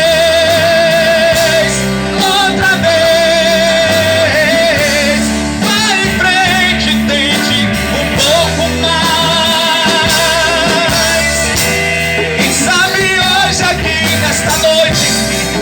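Live gospel rock band playing, with a voice singing long held notes with vibrato over the band's steady bass.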